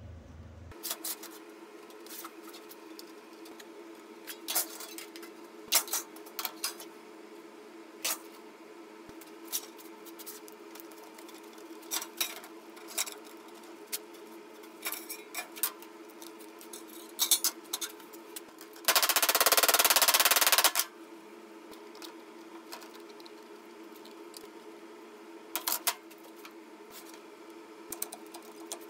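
Scattered clinks, taps and knocks of thin sheet metal and hand tools being handled on a perforated steel workbench, over a steady low hum. About two-thirds of the way through, a loud rushing noise lasts nearly two seconds.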